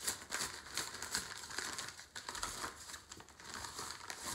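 A padded mailing envelope being opened and handled by hand: its paper crinkles in a steady run of small crackles.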